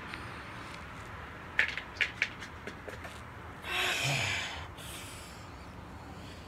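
A few light clicks, then, about four seconds in, a person breathing out hard through the nose for about a second, with a fainter breath just after.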